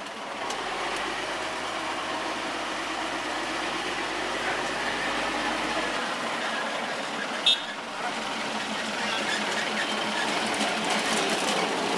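Narrow-gauge NDM6 diesel locomotive running, its engine growing louder in the last few seconds as the train moves off. A short, high toot sounds once about seven and a half seconds in.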